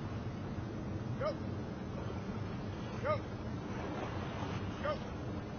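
A dragon boat crew paddling in unison over a steady wash of wind and water noise, with a short shouted call that rises and falls in pitch about every two seconds, three times.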